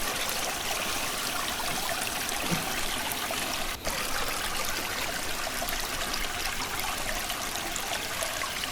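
Creek water running and trickling steadily, with a momentary dip just under four seconds in.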